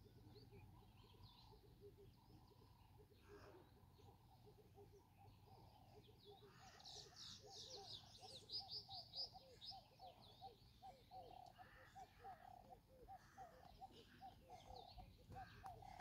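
Faint birdsong: a low note repeated steadily about three times a second, with a quick run of high, falling chirps a little before the middle.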